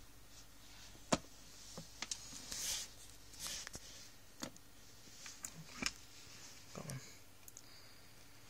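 Faint, scattered clicks and taps with a few soft rustles: handling noise on a clear plastic tub. The sharpest click comes about a second in.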